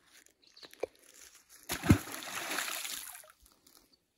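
A single splash into river water about two seconds in: a sudden low thump, then a second or so of rushing, spattering water that dies away. A few faint knocks come before it.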